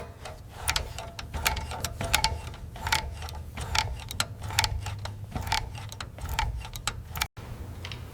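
A quick, irregular run of sharp clicks and taps, several a second, over a steady low hum.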